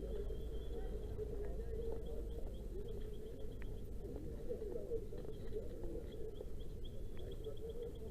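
A steady low engine hum with a bird's quick, high chirping trill repeating in several short runs over it.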